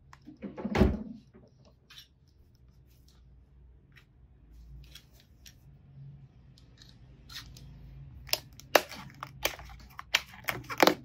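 Box cutter slicing and tearing the packing tape and cardboard of a parcel: a thump about a second in, scattered light scrapes, then a quick run of sharp cracks and rips near the end.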